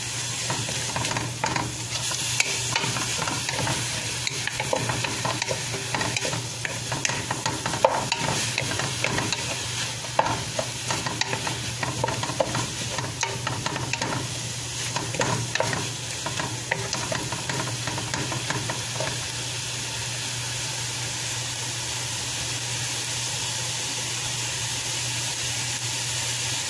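Chicken pieces and chopped onion sizzling as they fry in a metal pot, stirred with a wooden spoon that scrapes and knocks against the pot over a steady low hum. The knocking eases off about two-thirds of the way through, leaving a steady sizzle.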